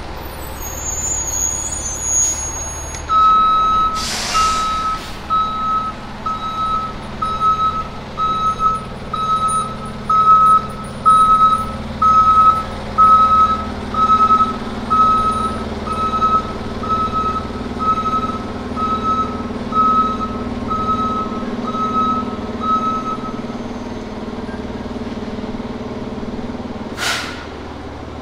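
Diesel fire engine, a 2021 Spartan Gladiator / Smeal pumper, backing into a station bay. Its reverse alarm beeps steadily, a little over once a second, for about twenty seconds over the low running of the engine. A sharp air-brake hiss comes about four seconds in, and another near the end as the truck stops.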